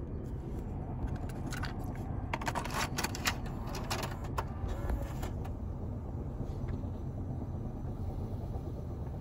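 Small plastic clicks and clatters of a cassette tape being handled and loaded into a car's cassette deck and its buttons pressed, scattered through the first five seconds or so, over a steady low hum inside the car.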